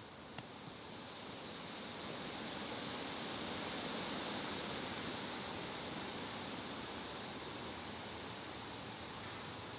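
Wind blowing: a steady hissing rush that builds over the first few seconds, then slowly eases.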